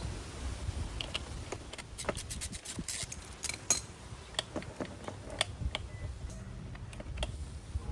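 Metal hand tools clinking and clicking: a socket ratchet and extension are handled and set down on concrete, with a quick run of clicks two to three seconds in and a sharper knock shortly after.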